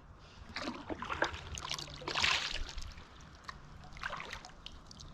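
Water splashing and trickling around a kayak being paddled through shallow river water, as the paddle dips and drips. There is a louder splash about two seconds in.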